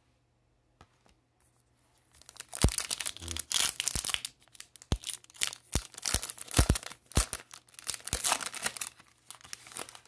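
Foil wrapper of an Upper Deck hockey card pack being torn open and crinkled by hand: a dense run of crackling and tearing that starts about two seconds in and stops just before the end.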